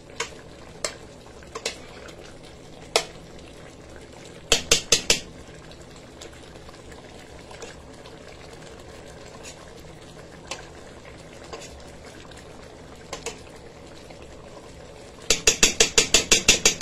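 Curry chicken simmering in a metal pot with a steady low bubbling, and a metal spoon clinking against the pot: scattered single knocks, four quick ones about four and a half seconds in, and a rapid run of about ten louder knocks near the end.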